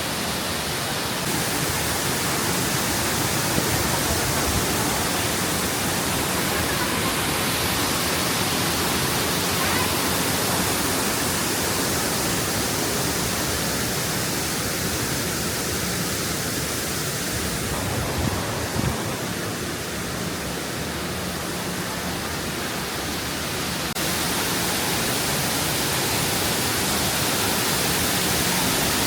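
Steady, even rushing noise without pauses or rhythm.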